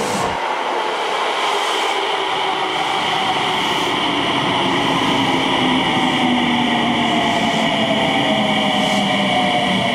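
Tsukuba Express TX-2000 series electric train pulling into a station and braking: its inverter-driven traction motors whine in several tones that fall steadily in pitch as it slows, over the rolling noise of the wheels on the rails.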